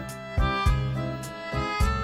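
Background music: an upbeat instrumental track with melodic pitched notes over a steady beat.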